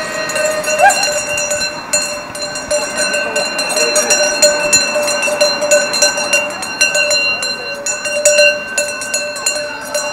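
Large bells of the Swiss cowbell kind ringing continuously, with their clappers striking over and over, so that a steady clanging ring runs throughout.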